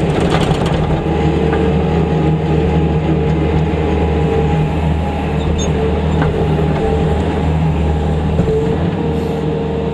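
Skid-steer loader's engine running steadily, heard from inside the cab as the machine drives through snow. There are a few sharp knocks about half a second in.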